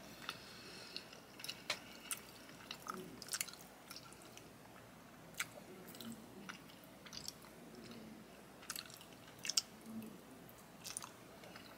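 Close-up chewing of soft, creamy chicken Alfredo pasta: quiet wet mouth sounds broken by scattered sharp clicks and smacks.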